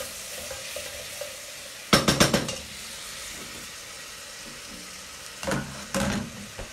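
Chopped onions sizzling in a stainless steel pot on a gas hob while a wooden spoon stirs them. A wooden spoon knocks against the steel pot several times in quick succession about two seconds in, with another knock or two near the end.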